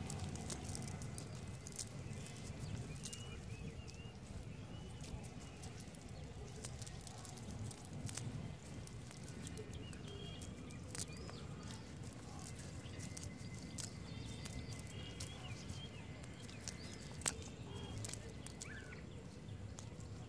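Wet cast net being handled on muddy ground, with scattered clicks and light rustles as fish are picked from the mesh, and one sharper click late on. A low outdoor rumble runs underneath, with a few faint chirps.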